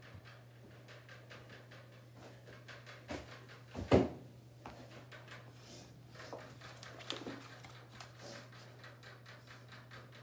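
Light knocks and rustles over a steady low hum, with one sharp thump about four seconds in and a few softer knocks after it.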